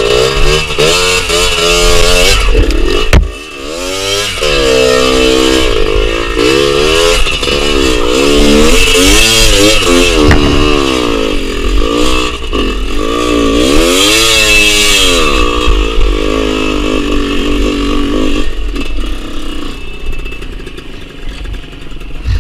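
Suzuki TS100 trail bike's two-stroke single-cylinder engine revving up and down as the throttle is worked over rough, rocky ground. The engine dips briefly about three seconds in, then picks up again. It settles toward a lower idle near the end.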